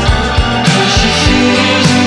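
Indie dream-pop song playing: a full band mix with sustained chords over a steady drum beat.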